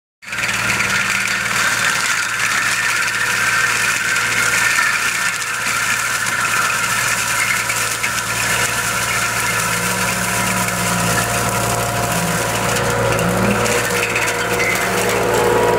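Tractor-mounted Nyoka Bosvreter bush mulcher at work: the tractor engine runs steadily under load while the spinning rotor shreds dry brush, a constant engine hum under a dense hiss of shredding.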